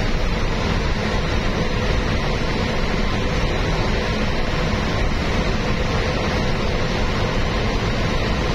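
Steady road and wind noise of a vehicle driving at highway speed, tyres on smooth asphalt, with a faint steady hum.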